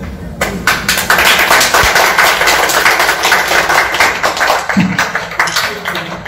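A group of people applauding, clapping their hands. The clapping starts about half a second in, is dense and steady through the middle, and thins to scattered separate claps near the end.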